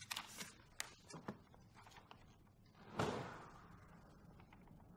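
A few light clicks and taps, then about three seconds in a heavy door clunks loudly as it is pushed open, its sound dying away slowly in the large, echoing hall.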